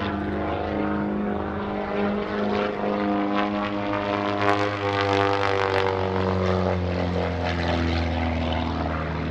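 Christen Eagle aerobatic biplane's piston engine and propeller droning steadily, with its pitch sliding down in the second half.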